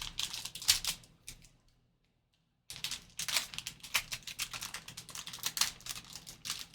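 A trading card pack being opened and its cards handled: quick clicks and crinkles of the plastic wrapper and cards, broken by a short dead gap about two seconds in.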